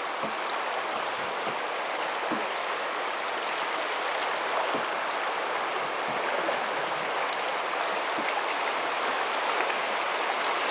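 River water rushing over a shallow, rocky shoal, a steady rushing hiss heard from a canoe. It grows slightly louder toward the end as the riffles draw nearer.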